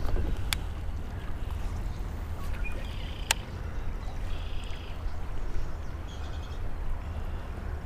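Wind rumbling on the microphone over water lapping against a kayak, with two sharp clicks, one just after the start and one about three seconds in.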